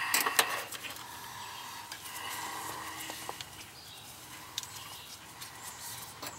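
Handling noise from a clamp meter and its test leads against an air-conditioner condensing unit's metal cabinet: a cluster of clicks and rustles near the start, then a few scattered light clicks over faint outdoor background.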